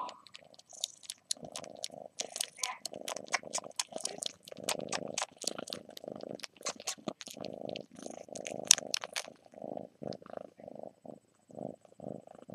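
Kitten purring, a steady pulsing purr. Over it, for most of the first nine seconds, comes a dense run of sharp clicks.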